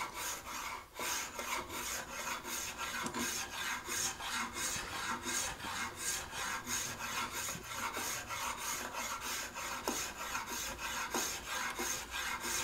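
Spokeshave slicing through Spanish cedar (cedrela) on a guitar neck being carved by hand, in quick short repeated strokes, about three a second, with a brief pause about a second in.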